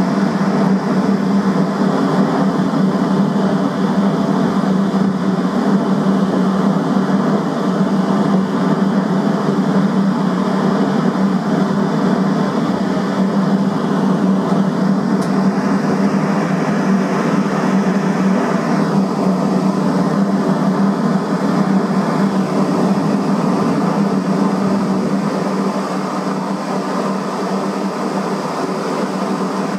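Boat's engine running steadily underway, a loud, even drone with a strong low hum; it eases off slightly near the end.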